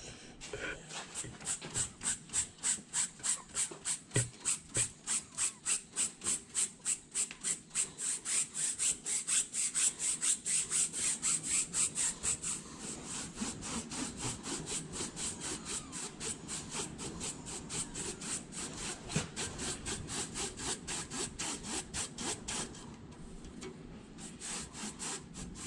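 A hand brush scrubbing rapidly back and forth on a truck part to clean it, about three strokes a second. About halfway through the strokes turn softer and less even.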